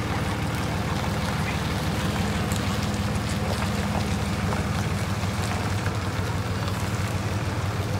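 Pickup truck engine running steadily at low revs while it tows the pontoon boat trailer down the ramp: an even low drone.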